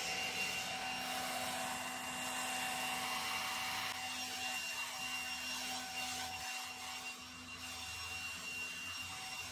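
Dewalt 60V Flexvolt brushless handheld leaf blower running at a steady speed: a constant fan whine over a rush of air.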